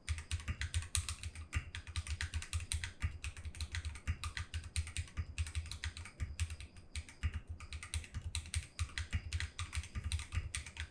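Fast, continuous typing on a Vortex VX5 Pro mechanical keyboard in an acrylic case, fitted with thin ABS SA-profile keycaps. Many keystrokes a second, each a sharp clack with a low thump under it.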